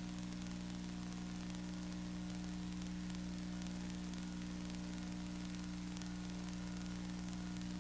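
Steady electrical hum with an even hiss and no other sound: the noise floor of a soundtrack that carries no recorded sound.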